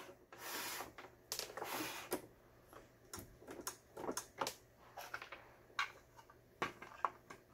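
Irregular light plastic clicks, taps and knocks from a Toyota STF17 home sewing machine's housing as it is turned on the bench and its white plastic end cover is fitted back on by hand. There are a couple of longer scraping sounds in the first two seconds.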